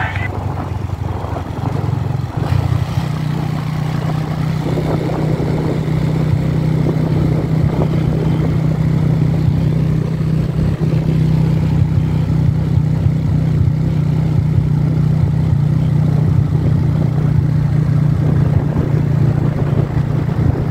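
Yamaha motorcycle's engine running steadily while riding along at an even speed, with road noise.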